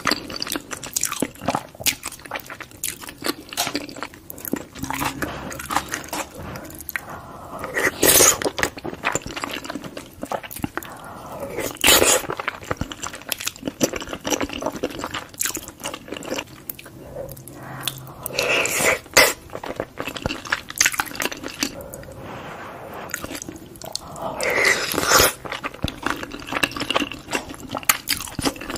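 Close-miked chewing of cheesy baked lasagna: wet, sticky mouth sounds with many small clicks, and a few louder bursts spread through as mouthfuls are taken.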